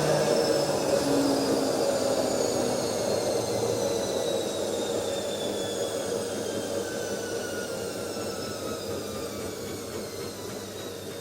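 Automatic washing machine slowing down: its motor whine falls steadily in pitch over a steady churning noise, and the whole sound gradually fades.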